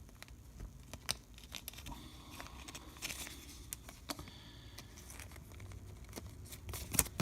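Baseball cards and foil pack wrappers being handled: soft rustling and crinkling with scattered light clicks, and a sharper click near the end.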